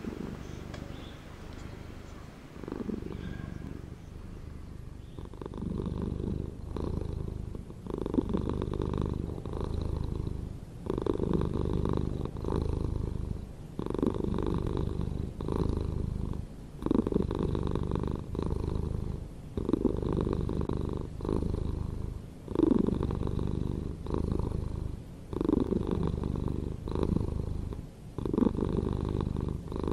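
A low, buzzing rumble pulsing in a steady rhythm, one pulse roughly every second and a half, like an animal breathing in and out.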